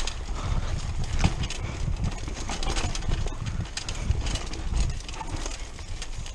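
Mountain bike riding fast down a dirt singletrack: a low rumble from the tyres on the ground, with irregular knocks and rattles from the bike over bumps and the brush close on both sides swishing against it.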